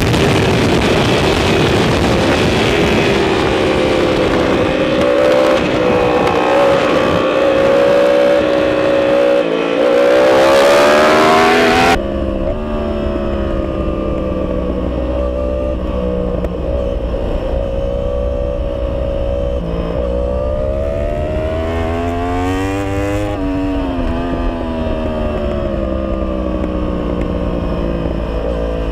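Onboard sound of a sport motorcycle's inline-four engine at track speed under heavy wind rush, the revs rising and falling through throttle and gear changes. About 12 seconds in the sound changes abruptly to a camera with much less wind noise, the engine still revving up and down.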